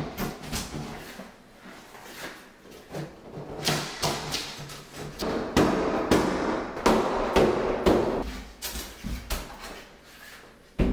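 Irregular, repeated blows of a rubber mallet on a wooden vanity countertop and backsplash, with knocks and thuds of the particle-board top shifting as it is driven loose from the cabinet. Music plays underneath.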